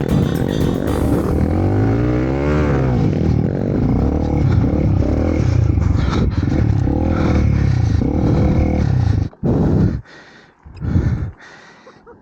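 Dirt bike engine revving under load, its pitch rising and falling, with scraping and clatter. The engine sound cuts off suddenly about nine seconds in, leaving only a few short bursts.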